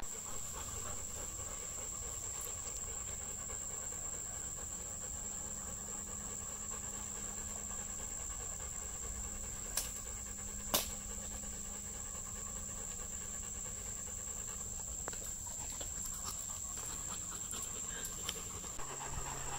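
A labmaraner dog (Labrador–Weimaraner cross) panting close by, over a steady high-pitched whine. Two short clicks come about halfway through.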